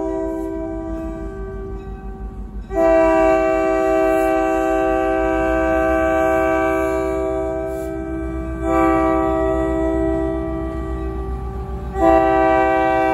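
Diesel freight locomotive's air horn blown in long, loud blasts, with fresh blasts starting about 3, 9 and 12 seconds in, over a low rumble.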